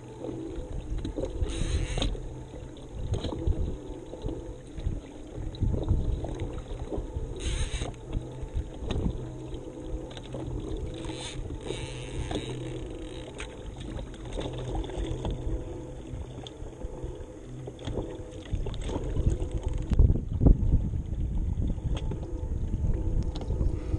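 Wind rumbling on the microphone and choppy water lapping and sloshing against a kayak's hull, with brief splashes about two seconds in and again at about seven and a half seconds.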